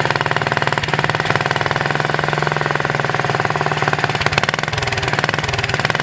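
1958 Wheel Horse RJ58 garden tractor's single-cylinder Kohler engine running with a rapid, even beat.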